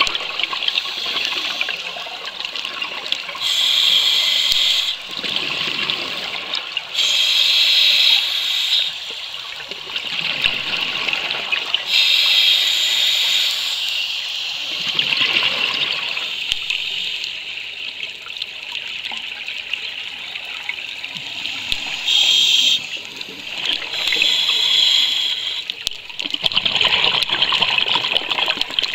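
Scuba diver breathing through a regulator underwater: bursts of hissing inhalation every few seconds alternating with lower, bubbling exhalations.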